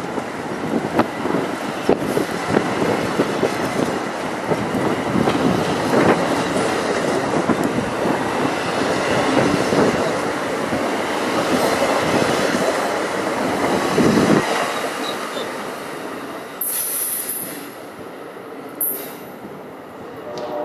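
NJ Transit commuter train rolling through the station, its wheels clattering over rail joints with a steady rumble. About two-thirds of the way in the rumble falls away abruptly, and near the end there are two short, high-pitched wheel or brake squeals.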